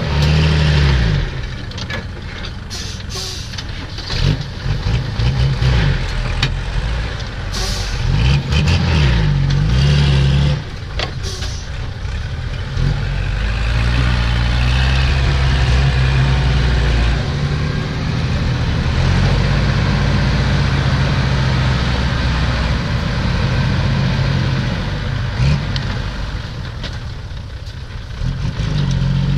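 Diesel engines of a six-wheel dump truck and a Kubota tractor running and revving up and down several times while the truck, stuck in soft mud, tips its load of dirt. A few brief knocks come through the engine noise.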